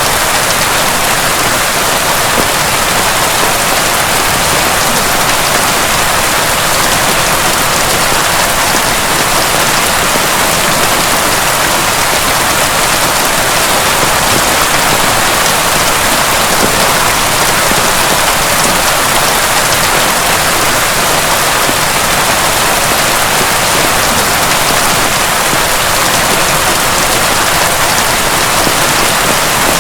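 Heavy rain pouring steadily in a dense, even hiss, with no thunder.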